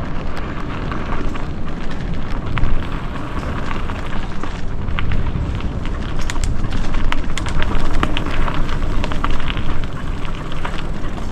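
Wind buffeting the microphone as a mountain bike rolls down a dirt trail, with tyre noise and frequent short clicks and rattles from the bike over rough ground.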